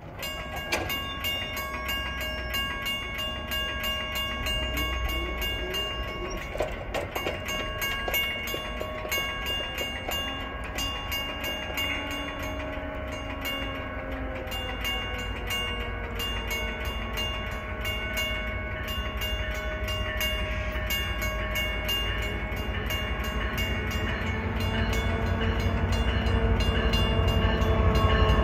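Railroad crossing bell ringing steadily as the warning signals flash and the gates lower. An approaching commuter train rumbles louder toward the end, and a train horn sounds as it nears.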